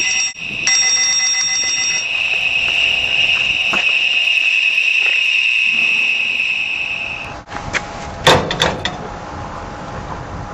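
Inferno sound-barrier alarm sounding one loud, steady, piercing high-pitched tone, set off by its seismic detector sensing the attack on the container door. The tone breaks briefly just after the start and cuts off suddenly about seven seconds in, followed by a few sharp knocks.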